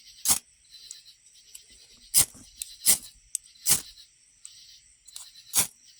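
Ferro rod scraped with a striker five times at uneven intervals, each stroke a short, sharp scrape, over a faint steady chirring of crickets.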